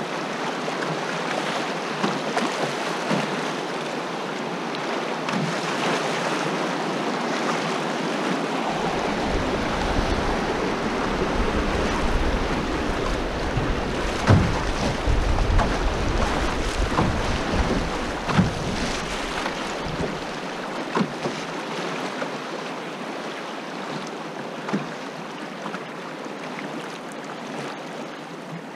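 Fast, shallow river water rushing and splashing around a moving canoe, with wind buffeting the microphone for about ten seconds in the middle. Occasional small knocks sound over the water.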